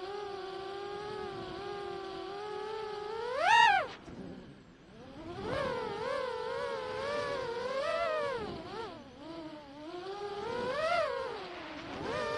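Quadcopter drone's motors and propellers whining at a steady pitch, then rising sharply to a loud peak about three and a half seconds in and falling away, after which the whine wavers up and down as the drone manoeuvres.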